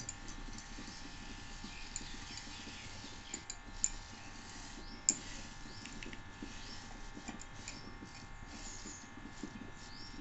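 Faint steady electrical-sounding hum with a few light clicks and soft rustling.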